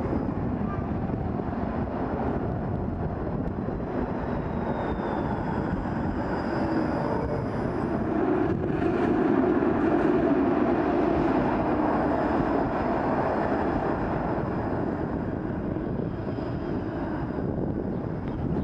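Street traffic rumble with a Bombardier Flexity Outlook low-floor streetcar running past on its rails, swelling about halfway through. A faint whine falls in pitch a few seconds in.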